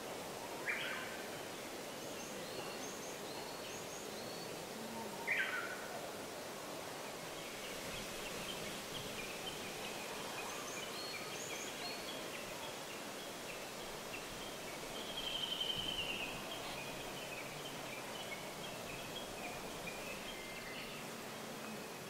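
Woodland ambience: a steady background hiss with wild birds calling over it. There is a short downward call about a second in and another about five seconds in, faint high chirps now and then, and a louder trill about two-thirds of the way through.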